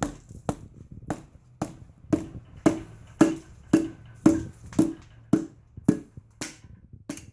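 Handle of a soft hammer knocking against a piston and connecting rod in a Chrysler 5.7 Hemi V8 block to drive it down out of the cylinder: a steady run of sharp taps, about two a second, each with a short ring.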